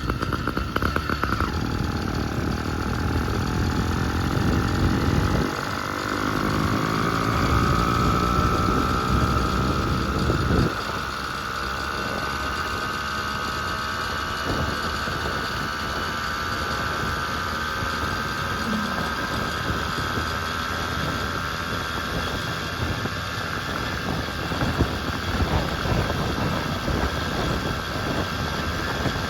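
Phantom 85 80cc two-stroke engine on a motorized bicycle running under way, its pitch rising over the first several seconds and then slowly falling as it eases off. It is loudest in the first ten seconds, then runs on more quietly and steadily.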